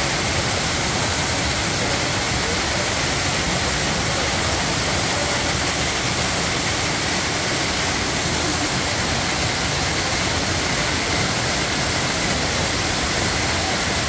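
A waterfall with several cascades pours onto rocks close by, making a steady, even rushing of falling water.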